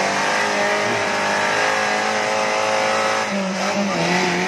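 Off-road 4x4's engine held at high revs, a steady strained note that dips slightly about three and a half seconds in before holding again, as the vehicle sits stuck in a deep mud rut.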